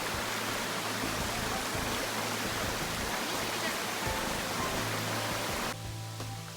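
Waterfall rushing steadily, with background music underneath. Near the end the water cuts off suddenly, leaving only the music.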